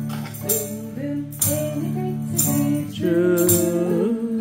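Acoustic guitar strummed in a slow, steady rhythm, about one stroke a second, with a tambourine jingling along: the intro to a children's song in a music therapy session.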